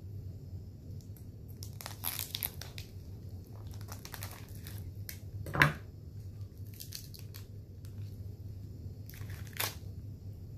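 Wafer-pack wrapper crinkling and tearing in several short bursts as it is worked open, with one sharp rip about halfway through. A low steady hum lies underneath.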